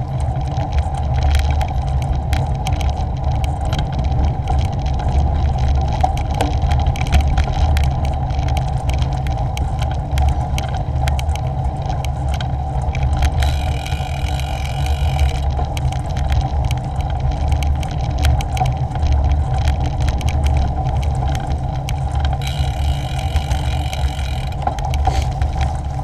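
Bicycle ride heard from a handlebar- or helmet-mounted action camera: a steady rumble of wind on the microphone and tyres on a tarmac path, with small rattles and clicks. A high buzz joins twice, about 13 seconds in and again about 22 seconds in.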